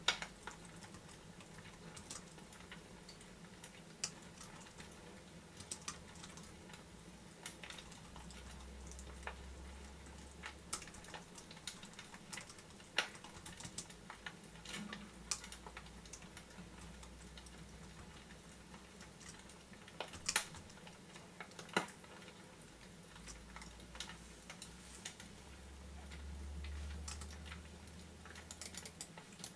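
Fireplace crackling: irregular sharp clicks and pops over a faint steady hum.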